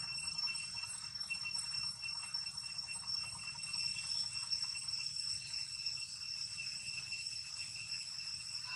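Steady, high-pitched insect drone in several thin, unbroken tones, over a faint low rumble.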